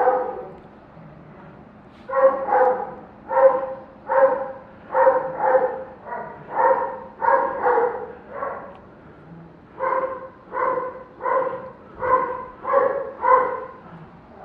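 Dog barking over and over, about two pitched barks a second, with a brief pause about halfway through.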